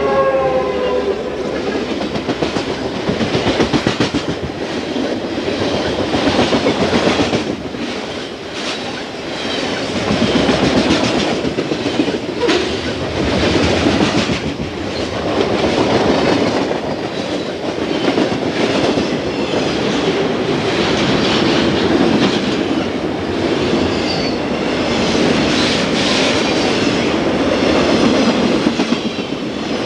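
Southern Pacific freight train passing close by: trailing diesel locomotives rumble past, then freight cars with wheels clicking steadily over the rail joints. The tail of a horn blast fades out in the first second.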